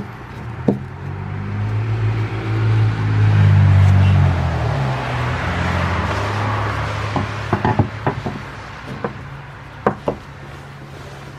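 A motor vehicle passes by, its engine hum swelling to a peak a few seconds in and then fading. Over it, and after it, come sharp metal clicks and taps as a punch and loose saw screws knock against the wooden handle of a keyhole saw while the screws are taken out.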